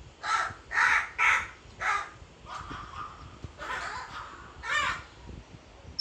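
A crow cawing: four loud caws in quick succession in the first two seconds, then a few softer calls, and one more loud caw near the end.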